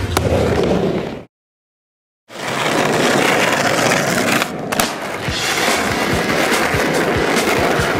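Skateboard wheels rolling over hard ground in a steady rough rumble, with several sharp clacks of the board. The sound cuts out completely for about a second near the start, then the rolling comes back in.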